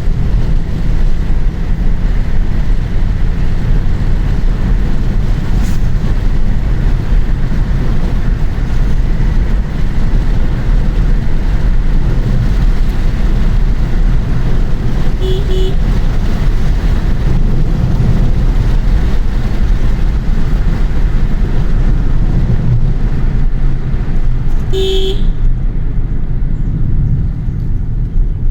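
Steady, loud low rumble of a road vehicle in motion, with a horn giving a short double toot about halfway through and a longer honk near the end.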